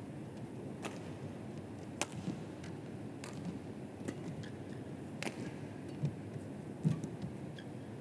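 Badminton rally: racket strings striking a feather shuttlecock, a sharp crack about every one to two seconds, over the steady background noise of an indoor arena.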